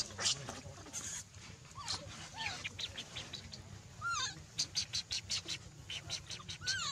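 Animal calls: quick runs of short high chirps, several a second, and a few squeaky calls that bend up and down in pitch, about four seconds in and again near the end.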